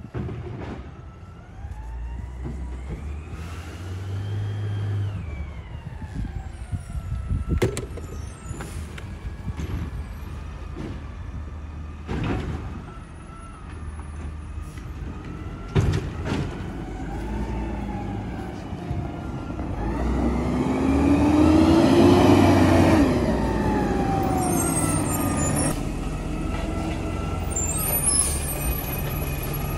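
Garbage truck's diesel engine running and revving up and down as the truck drives up and pulls in, loudest about two-thirds of the way through, with a few sharp knocks and clanks along the way.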